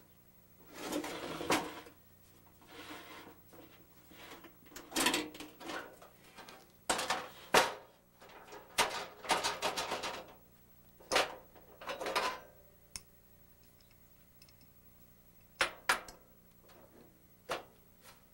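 Two-burner Coleman propane stove's sheet-metal case being opened and handled: the latches, lid and wire grate clatter, knock and scrape in a run of rattles, then a few single knocks near the end.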